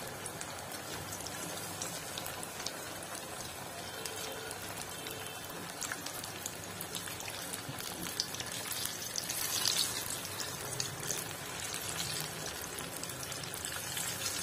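Besan-battered chicken pieces deep-frying in hot mustard oil in a kadhai: a steady sizzle with many small crackles, swelling briefly about nine to ten seconds in.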